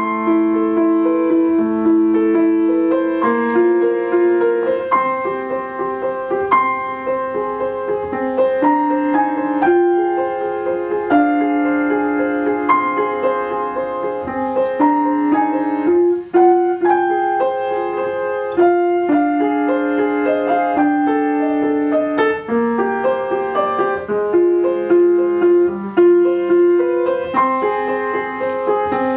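Grand piano played solo: ringing notes and chords in the middle register, changing every second or so in a gently repeating pattern.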